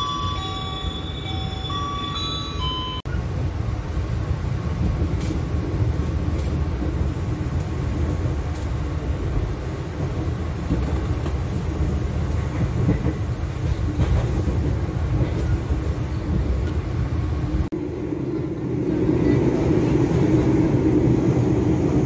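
Argo Cirebon passenger train heard from inside the carriage: a steady rumble and rattle of the coach on the rails, louder and fuller from about eighteen seconds in as the train runs faster. A few short electronic tones sound at the start.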